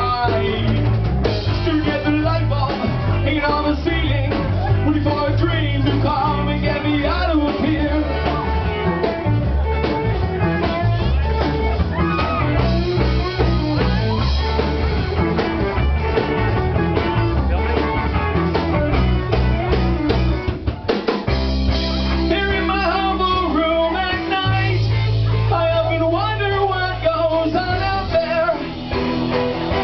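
Live rock band playing: electric guitars and drum kit with a male lead vocal sung into a handheld microphone. The heavy low end drops away for a few seconds about two-thirds of the way through, then comes back.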